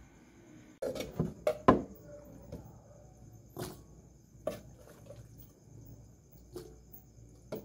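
Cooked beans being spooned from a pressure cooker into a glass bowl: short wet plops and drips, with a cluster of sharper knocks about a second in and single ones every second or so after.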